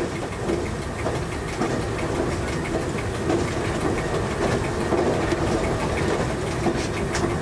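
MAN metre-gauge diesel railcar running along the track at speed, heard from inside the driver's cab: a steady engine drone with wheel-on-rail noise and frequent short clicks and rattles.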